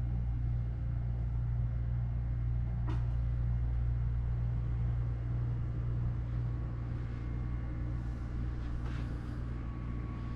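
Steady low mechanical hum, with one light click about three seconds in and a faint high steady tone joining near the end.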